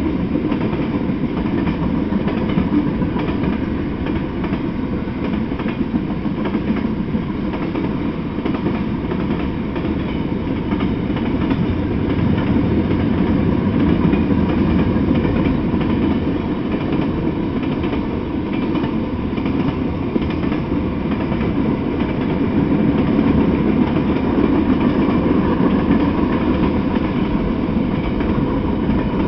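Freight train rolling past: a steady rumble of steel wheels on the rails from a long string of mixed freight cars, swelling slightly now and then.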